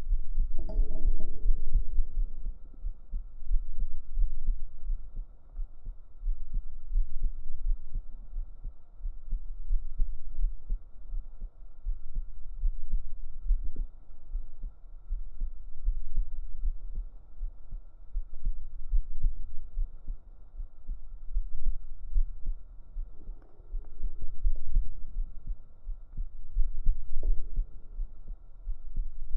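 A real human heartbeat recorded up close against the chest with binaural microphones: a continuous deep, low thudding pulse whose loudness swells and fades about every three seconds.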